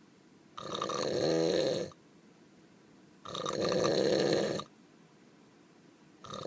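Snoring: two long, loud snores a couple of seconds apart, each lasting over a second. A short snort comes just at the end.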